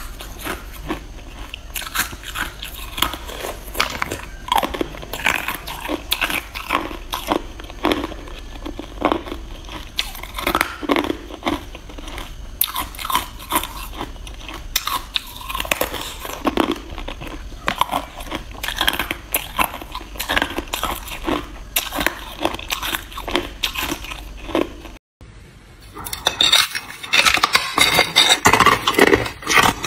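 Clear ice cubes being bitten and chewed, a steady run of sharp crunches and cracks. After a brief break near the end, a thick frosted ice block is bitten, with louder, denser crunching.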